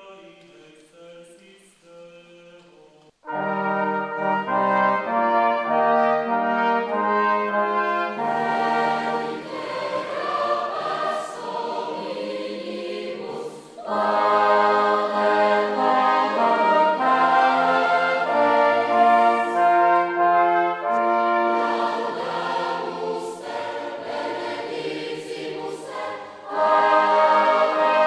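Large choir singing with a brass quartet of two trumpets and two trombones in a church. The voices begin quietly on their own, and the brass comes in loudly with full chords about three seconds in. After that, choir and brass sing and play together in sustained phrases, with a fresh loud entry near the end.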